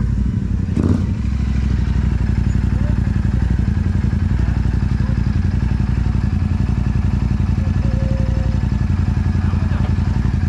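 Royal Enfield Super Meteor 650's 648 cc parallel-twin idling steadily through a Rhino Racing aftermarket exhaust, a steady low exhaust note with an even pulse.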